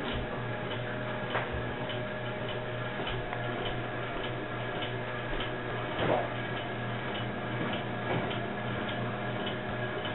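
Faint regular ticking over a steady low hum and hiss, with a few soft knocks, the plainest about six seconds in.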